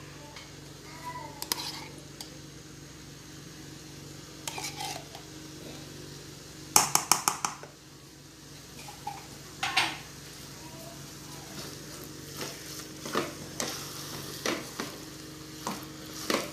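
A spoon knocking against the rim of an aluminium pot, a quick run of five or six knocks about seven seconds in, as tomato paste is knocked off into the chicken filling. Scattered single clinks and scrapes of a wooden spoon stirring the filling follow, over a faint steady hum.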